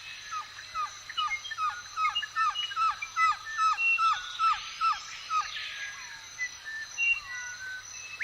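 Several birds singing in a forest, with one bird repeating a run of short falling whistled notes, about two or three a second, through the first half. Faint steady high tones run behind throughout.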